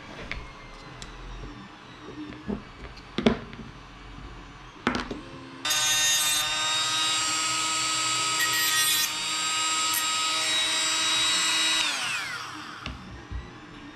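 Milwaukee cordless rotary tool with a cutoff wheel starting suddenly about five and a half seconds in, its high steady whine mixed with grinding as the wheel cuts off the end of an electric motor's shaft, then winding down in pitch near the end. A few sharp knocks from handling the tool and motor come before it starts.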